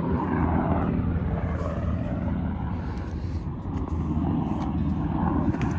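A steady low engine rumble with a hum in it, loud and unbroken.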